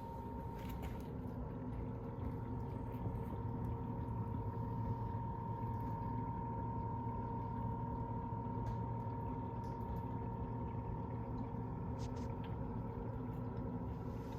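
Water running steadily through a reef aquarium's overflow and Bean Animal drain plumbing into the sump, over the constant hum of the return pumps, with a steady high whine throughout and a few faint ticks.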